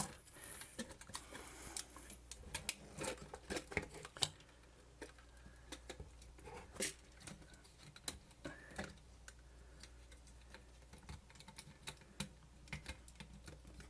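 Scattered small clicks and taps of plastic and metal camcorder parts being handled and fitted together on a workbench, irregular and faint, over a low steady hum.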